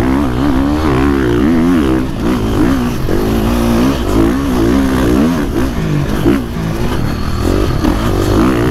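KTM 450 SX-F motocross bike's single-cylinder four-stroke engine under way across sand whoops, heard up close from the bike. Its revs rise and fall over and over as it works through the holes.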